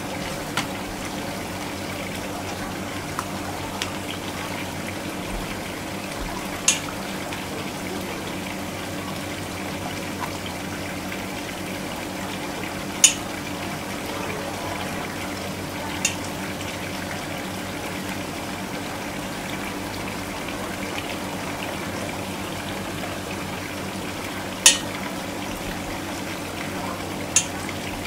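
Steady hiss of running water from a hose into a steel bowl where sea urchin roe is being rinsed in a plastic colander, with six short sharp clicks of the metal tweezers against the colander and bowl.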